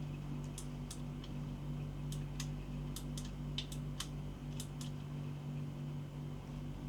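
Light clicks and taps from handling a gel blaster's box and packaging, about a dozen scattered through the first five seconds, over a steady low hum.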